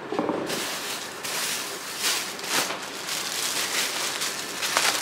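Grocery packaging rustling and crinkling as items are handled, starting about half a second in.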